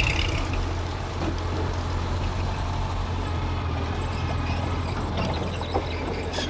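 Mitsubishi G2 bulldozer's diesel engine running steadily, with a constant low hum.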